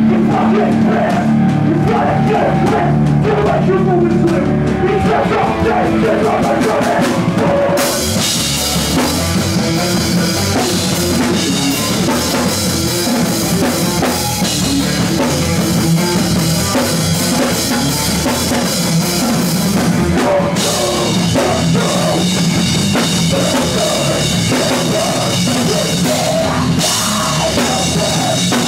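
Live rock band playing loud, with the drum kit to the fore. About eight seconds in, the cymbals crash in with the full band, dip out for a few seconds near the end, then return.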